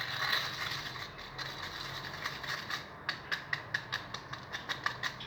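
Slime mixture being stirred in a bowl just after the borax activator went in: scraping first, then a fast run of sharp clicks from the stirrer against the bowl, about five a second.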